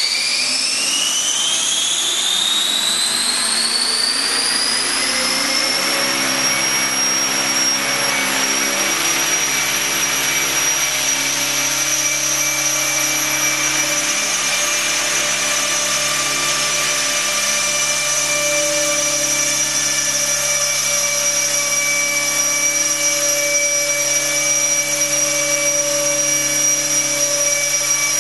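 Electric Align T-Rex 600 RC helicopter spooling up. The motor and gear whine rise in pitch over the first several seconds, then hold steady once the rotor reaches head speed.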